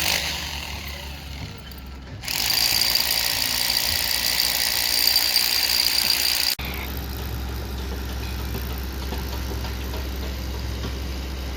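Excavator engine running steady. The sound changes abruptly about two seconds in and again about six and a half seconds in. The middle stretch is louder, with a strong high hiss and a steady high whine over the engine.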